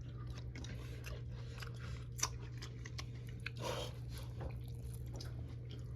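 Faint kitchen handling sounds: scattered soft clicks and crunching, with one sharper click a little past two seconds in and a short rustle near the middle, over a steady low hum.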